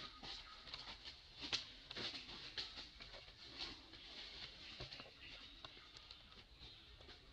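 Quiet outdoor ambience: a steady faint high hiss with scattered soft clicks and rustles.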